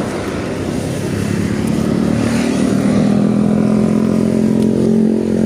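A vehicle engine running steadily close by: an even, pitched hum that grows louder about a second in and then holds steady.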